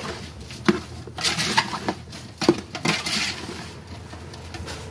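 A metal ladle stirring chopped eel and lemongrass in a large aluminium stockpot. It scrapes the pot and knocks against its side several times over the first three seconds, then settles.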